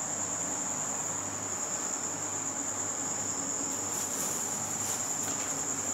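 Insects trilling steadily in one continuous high-pitched tone, over a faint low hum. A few soft rustles come about four seconds in.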